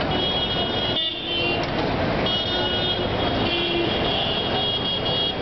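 Road traffic noise with car horns honking: long high-pitched horn blasts in the first second and again from a little after two seconds in, over the steady sound of passing engines and tyres.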